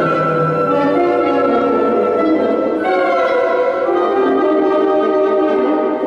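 Woodwind quintet with a percussion ensemble playing live: held wind notes, with a brighter chord entering about three seconds in.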